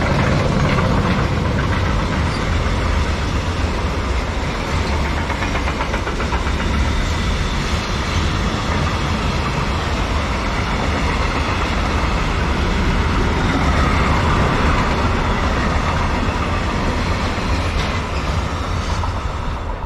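A train passing close by, its wheels clattering steadily over the track.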